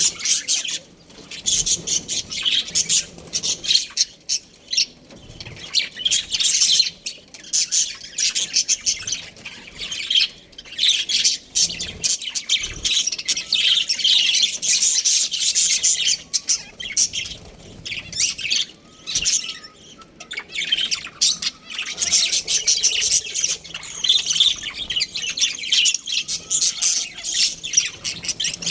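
Budgerigars chirping and squawking in a continuous rapid, high-pitched chatter, with only brief lulls.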